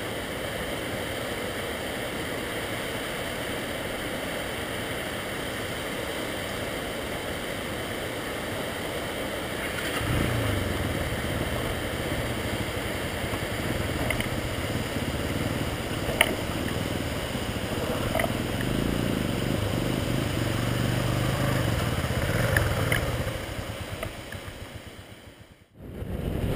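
Steady rush of a waterfall. About ten seconds in a low rumble joins it, with a few faint clicks, and the sound fades out near the end.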